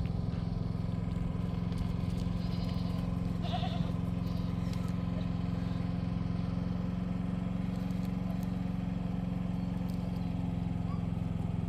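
An engine idling steadily, with one short goat bleat about three and a half seconds in.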